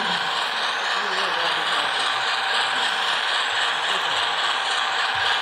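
Covered hopper cars of a model freight train rolling past on the track: a steady noise of small wheels running on the rails.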